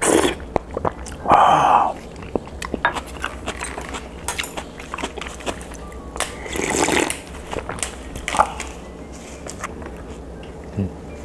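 Eating sounds: slurps of spicy fish stew broth from a spoon in the first two seconds, then chewing with small clicks of utensils. About six seconds in comes a longer slurp of clam broth drunk straight from a plastic container, and a soft thump near the end.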